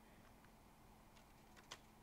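Near silence: room tone, with a faint click a little before the end.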